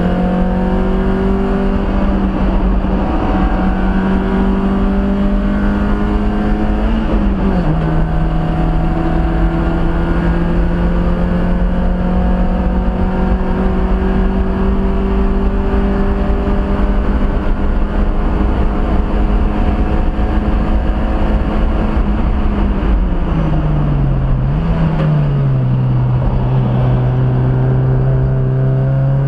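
Mazda Miata race car's four-cylinder engine heard from inside the cabin, on track under load. Its pitch climbs slowly, drops sharply once about seven seconds in as it shifts gear, and falls again near the end with a short blip before climbing once more.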